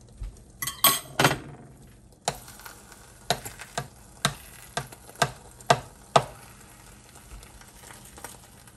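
Black plastic slotted spatula tapping and scraping against a nonstick skillet while stirring omelette eggs: a string of sharp clicks about half a second apart, over faint sizzling. About a second in comes a short clatter of utensils.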